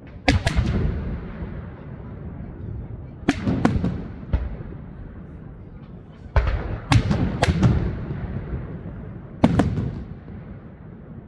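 Fireworks shells bursting overhead: sharp bangs in small clusters every few seconds, each followed by a rumbling echo.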